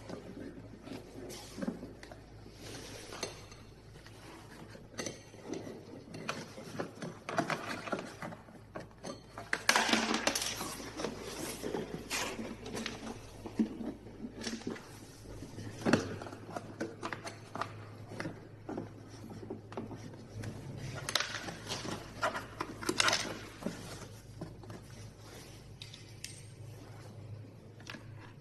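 Hand tools and small metal parts clinking, tapping and clattering in irregular bursts while a steering motor is being replaced, over a steady low hum.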